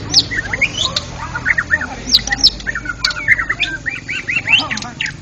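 White-rumped shama (murai batu) singing: a fast, unbroken string of varied whistles and sweeping notes.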